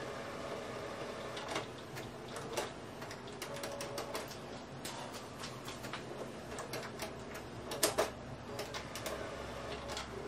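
Canon Pixma iX6820 inkjet printer going through its first power-on initialisation: a steady mechanical hum under irregular clicks and ticks from the print mechanism, with the loudest pair of clicks about eight seconds in.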